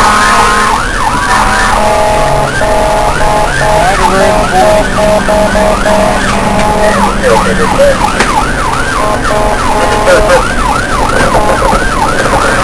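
Ambulance's electronic siren heard from inside the cab, running through fast repeating rising-and-falling yelp sweeps, with alternating two-tone notes overlapping them through the middle, over the steady hum of the vehicle.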